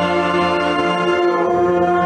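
Marching band's wind section, including tubas and flutes, playing a loud, steady sustained chord as a warm-up long-tone exercise. The chord moves to new notes about a second in.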